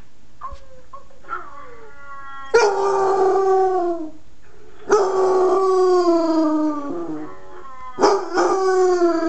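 Nine-month-old basset hound howling: a few short whines, then three long howls, each starting abruptly and sliding down in pitch.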